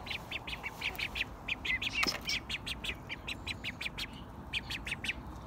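Baby ducks peeping: a rapid, steady stream of short, high calls, several a second, with a single click about two seconds in.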